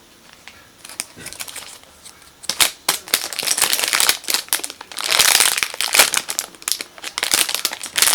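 Crinkling and rustling as a squishy toy is handled, in irregular bursts that start quietly and grow dense and loud from about two and a half seconds in.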